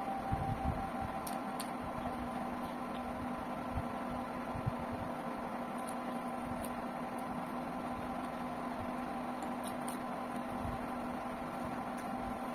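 A steady mechanical hum with a few faint tones in it, running without change, over soft sounds of eating rice by hand: a few faint low knocks and small clicks.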